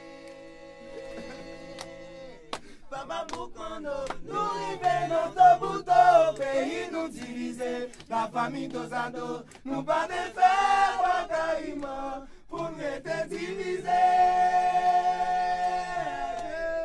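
Several men's voices singing a cappella in harmony, a chant-like Haitian roots song. The voices rise and fall in phrases, and near the end they settle onto one long held chord.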